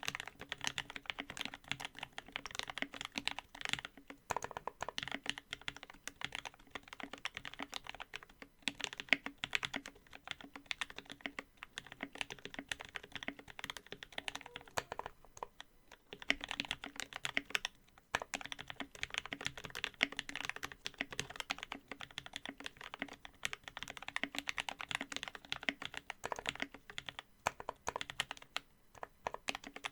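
Continuous fast typing on a mechanical keyboard with lubed and filmed Gateron Black Ink linear switches in an aluminum Tofu65 case with aluminum plate, case foam and GMK doubleshot keycaps, with a few brief pauses.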